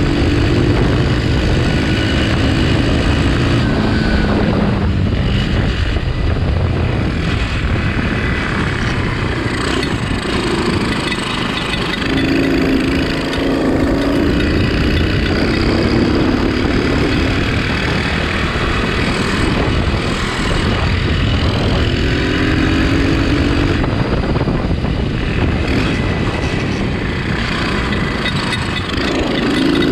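Homemade shifter go-kart's engine running, its pitch rising and falling in stretches as the throttle changes.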